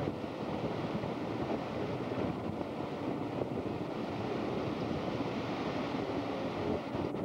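Steady wash of small surf, with wind on the microphone.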